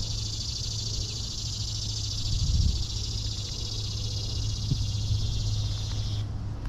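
A steady high-pitched buzzing from an animal that cuts off abruptly about six seconds in, over a steady low hum.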